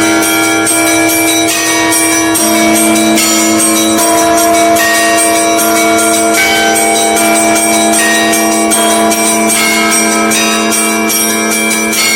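Russian Orthodox church bells ringing a full peal: many small bells struck rapidly over the steady hum of larger bells, loud and continuous.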